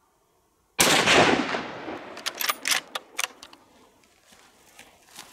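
A single hunting-gun shot, sharp and very loud, with a long echo rolling away over about a second. A few sharp clicks follow a second or so later.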